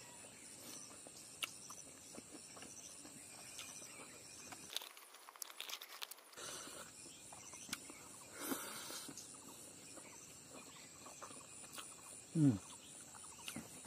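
Quiet outdoor ambience with faint crackling and clicking sounds of eating rice and smoked chicken by hand from a banana leaf, over a steady high insect hiss. A brief falling hum of a man's voice comes near the end.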